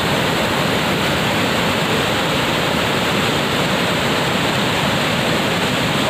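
Waterfall crashing over rocks: a steady, loud rush of falling white water.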